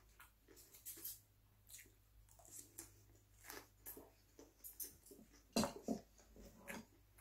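A person chewing a mouthful of pan-fried dumpling and kimchi close to the microphone: soft, irregular wet mouth clicks and smacks, the loudest a little past the middle.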